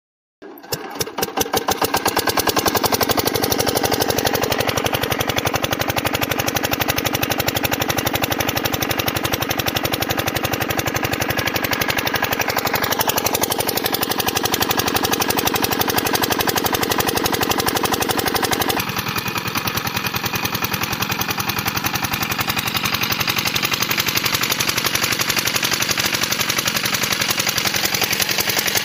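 Miniature model diesel pump-set engine starting up about half a second in and settling into a fast, even mechanical rattle of rapid knocks, like a tiny single-cylinder diesel running.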